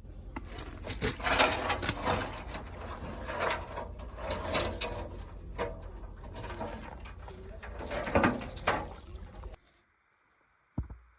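Clicks, scrapes and rattles of wire connectors and a small wiring harness being worked loose and pulled off a Goodman furnace blower motor, over a low rumble. The noise stops abruptly about nine and a half seconds in, and a single knock follows near the end.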